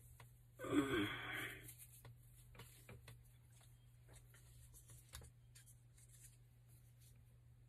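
Faint clicks and rustles of hands handling a small threaded pipe fitting and its thread seal tape, over a steady low hum. A brief voice sound about a second in is the loudest thing.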